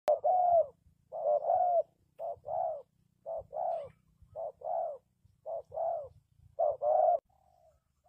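Spotted dove cooing: seven two-note phrases, about one a second, each a short coo run straight into a longer one. A soft, faint note follows near the end.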